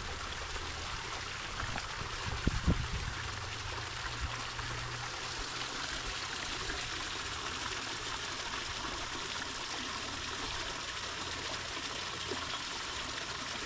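Garden fountain water trickling steadily into a pond, with a couple of faint low knocks between two and three seconds in.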